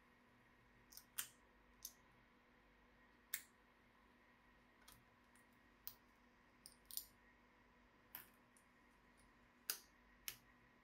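About a dozen sharp, irregularly spaced clicks and taps from laptop parts and tools being handled during disassembly, over a faint steady hum.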